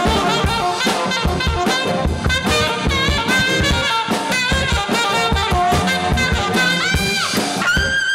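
Live band with trombone and saxophone playing upbeat swing-jazz over a steady drum beat.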